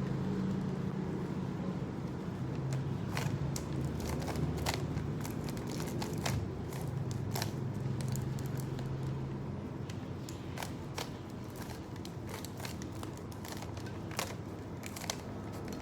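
Plastic Rubik's cube being turned layer by layer, giving a string of irregular clicks and clacks.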